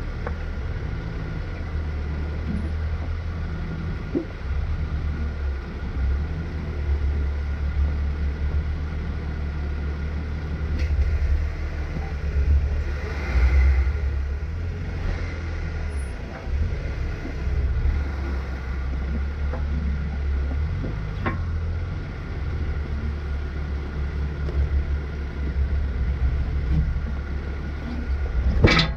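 Off-road 4x4's engine and drivetrain running at low speed on a rough dirt trail, a steady low rumble, with one sharp knock near the end.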